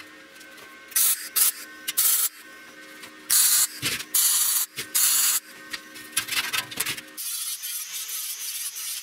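Arc welding on steel: bursts of crackling sizzle about a second in and again around three to five seconds in, with small ticks between them. About seven seconds in, an angle grinder starts running steadily against the steel.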